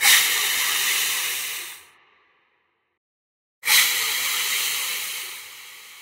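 Hissing sound effect in two bursts. The first starts sharply and dies away after about two seconds; after a short silence the second starts just as sharply and fades more slowly.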